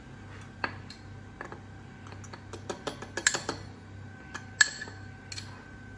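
Light, scattered clicks and taps of a spoon against a mug as cocoa powder is spooned in, with a small cluster of taps a little past three seconds and a sharper clink about four and a half seconds in.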